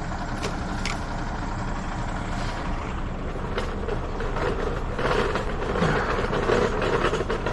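Heavy vehicle engine idling steadily, with a few sharp clicks early on and a louder engine or machine sound joining about five seconds in.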